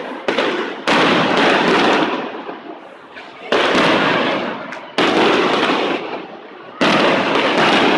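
Fireworks display: shells bursting about five times, each a sudden loud bang followed by a noisy wash that fades over a second or two before the next burst.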